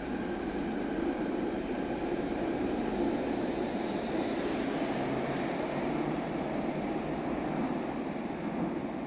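Fukuoka City Subway Nanakuma Line linear-motor train pulling out of an underground station platform: a steady rolling rumble and rush of the moving cars, with a brief swell of hiss midway, easing off near the end as the train clears the platform.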